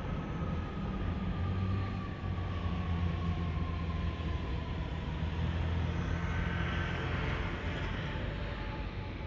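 Car driving along city streets: a steady low engine and road hum, with a faint whine slowly falling in pitch over the first few seconds and a rushing swell about six to eight seconds in.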